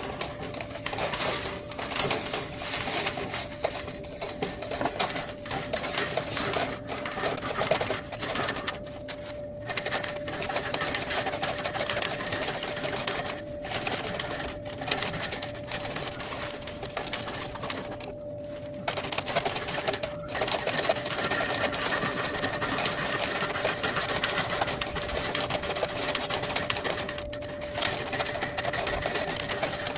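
Steel fish tape rattling and scraping as it is worked back and forth through a long dryer vent duct to loosen packed lint, a fast steady clatter broken by a few short pauses. Under it runs the steady hum of the clothes dryer, blowing air through the vent.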